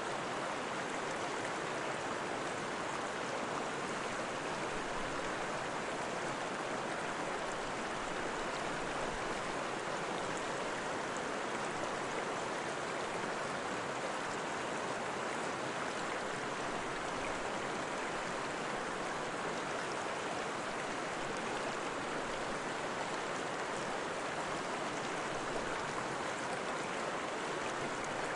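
Steady running-water sound of a flowing stream, an even rush with no breaks or changes.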